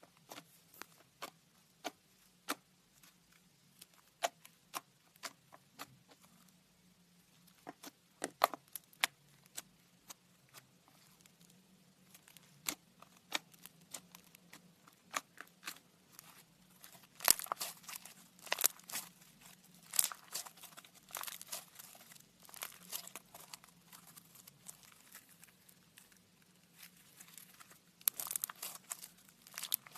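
Slime being played with, making sharp crackling pops and clicks. They are scattered at first and come thick and fast in the second half.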